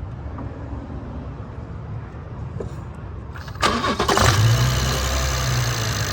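BMW 340i's B58 turbocharged inline-six starting: a brief crank about three and a half seconds in, catching at once and settling into a steady idle.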